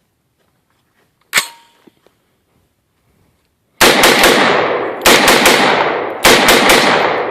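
Loud gunfire: three clusters of shots about a second and a quarter apart, each made of several sharp reports in quick succession with a long ringing decay. Before them comes a single sharp metallic click.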